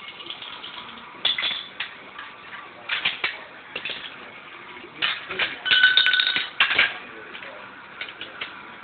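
Metal clicks and clanks of an M249 SAW light machine gun being field-stripped by hand, as parts are unlatched, pulled free and set down. A dense run of clatter with a short ringing tone comes about five to seven seconds in.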